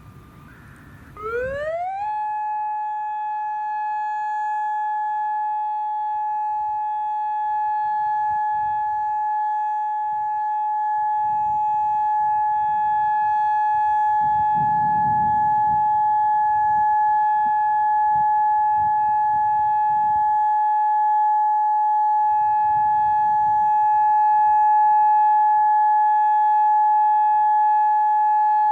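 Federal Signal Modulator outdoor warning siren starting up for its monthly test: its pitch glides up quickly about a second in, then it holds one steady alert tone that slowly grows louder.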